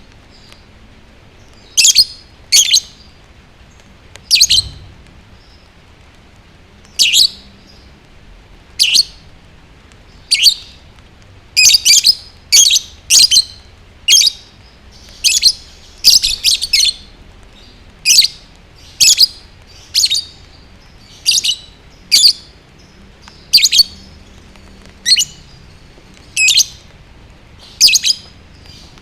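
Lovebird chirping: sharp, high, loud chirps, singly or in quick pairs, about one a second with irregular short pauses.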